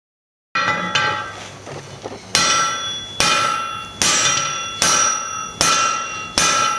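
Hand hammer striking a glowing 1-inch steel bar on an anvil while upsetting it (thickening the bar). A couple of lighter clanks, then six ringing blows about 0.8 s apart, the anvil ringing after each.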